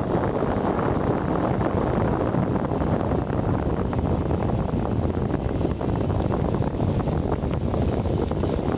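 Wind buffeting the microphone: a loud, steady rumbling noise.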